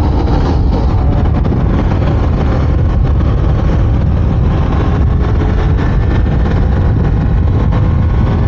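Steady wind rush on the microphone of a KTM Duke 390 riding at speed, with the bike's single-cylinder engine running underneath as it speeds up in the second half.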